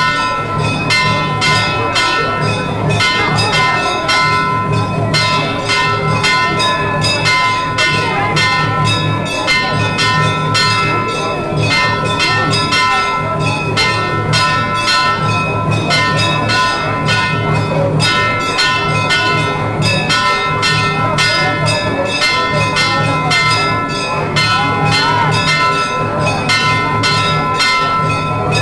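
Temple bells ringing rapidly and without pause, several strikes a second, with several ringing tones held over one another and a low pulsing beat underneath.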